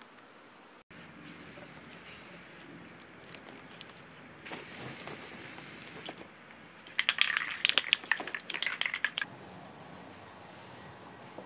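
Aerosol spray-paint can spraying the bike frame in one hissing burst of about a second and a half. It is followed by about two seconds of quick, sharp clicking rattles.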